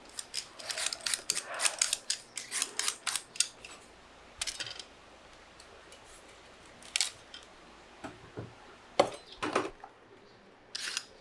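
Hand peeler scraping the skin off purple sweet potatoes in quick strokes, about four a second for the first few seconds. After that come a few single, widely spaced scrapes as a knife and the peeler trim the roots.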